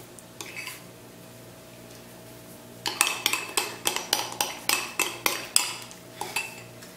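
A utensil scraping and clicking against a mixing bowl while stirring slime. It starts with a few clicks, goes quiet, then gives a quick run of strokes about three a second from about three seconds in until near the end. The glue mixture is just starting to thicken into slime after contact lens solution was added.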